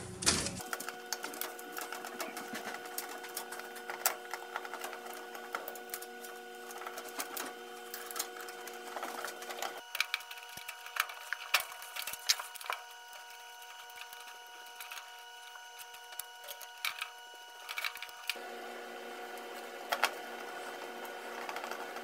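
Quick clicks and small metallic rattles of wire spade terminals and a screwdriver being worked on a furnace's heating-element sequencer, over a faint steady hum of several tones that changes abruptly twice.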